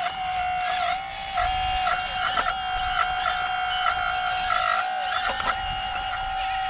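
Small electric motor of an RC excavator's hydraulic pump whining steadily, its pitch dipping briefly now and then as the machine works. Over it, high chirps come again and again, each rising and falling.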